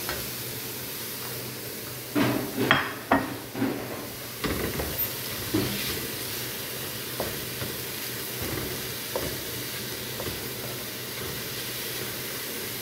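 Diced carrots and onion sizzling steadily in a nonstick frying pan while a spatula stirs chopped parsley through. The spatula scrapes and knocks against the pan in clusters from about two to six seconds in, then taps lightly now and then.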